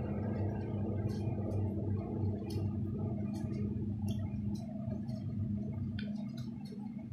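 Close-up mouth noises of a person biting into and chewing boiled corn on the cob: small wet clicks and smacks scattered throughout, over a steady low hum.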